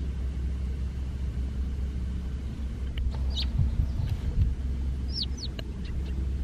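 Outdoor waterside ambience: a steady low rumble, with a few short, high bird chirps from about halfway through, including two quick falling chirps near the end.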